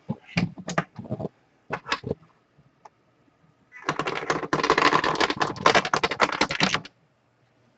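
Computer keyboard typing: a few scattered key clicks, then about three seconds of rapid, continuous typing.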